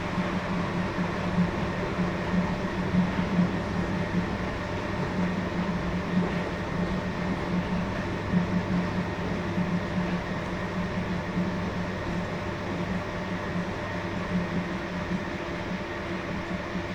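Front-loading washing machine running: a steady motor hum with a low rumble from the turning drum.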